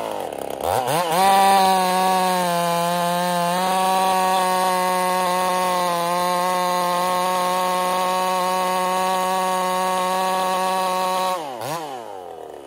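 Ported Husqvarna 55 two-stroke chainsaw revs up to full throttle about a second in and holds there while cutting through a log, its pitch dipping slightly for a moment, then drops back to idle near the end. The saw is down on power and struggling to stay above 11,000 rpm, which the owner puts down to cylinder scoring from plating coming off.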